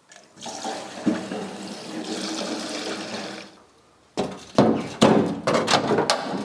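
Fuel glugging and splashing as it is poured from a plastic jerry can through a funnel into the tractor's fuel tank for about three seconds. It is followed by a run of sharp clunks and rattles of sheet metal as the raised bonnet is worked down.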